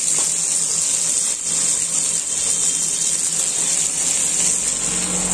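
Steady hiss of cooking in a large aluminium pot of onions, green chillies and green leaves being stirred with a ladle, with a steady low hum beneath.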